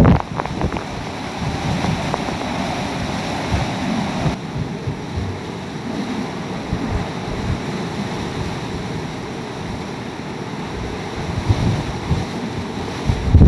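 Hurricane eyewall winds with heavy rain: a steady rushing noise, with gusts buffeting the microphone in low rumbles that grow stronger near the end.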